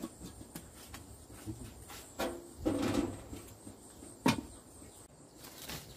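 A few knocks and a short clatter, the loudest a sharp knock about four seconds in.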